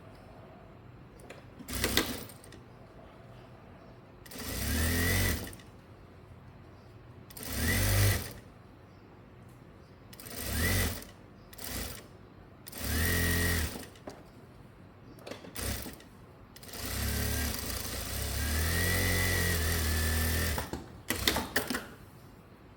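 Electric sewing machine stitching in short runs: four bursts of about a second each, with the motor whining up at the start of each, then a longer run of about four seconds near the end. There are sharp clicks between the runs.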